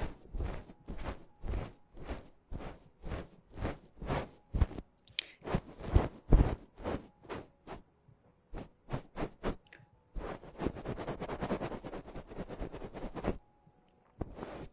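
Close-miked ASMR mouth sounds: wet tongue clicks repeated about two to three times a second. About ten seconds in they give way to roughly three seconds of dense, continuous crackling close to the microphone.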